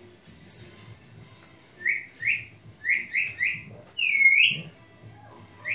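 Bird chirping: short whistled chirps in quick groups of two and three, with one longer swooping call about four seconds in.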